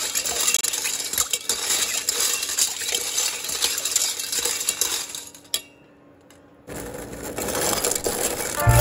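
Stainless steel piping tips rattling and clinking against one another and the metal pot as they are jostled in boiling water during sterilisation. There is a short break a little past halfway, then the clinking resumes.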